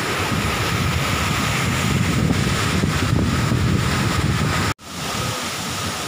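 Steady rush of water from a rocky mountain stream and waterfall, with wind rumbling on the microphone. The sound cuts out for an instant about three-quarters of the way through, then the waterfall's hiss carries on with less rumble.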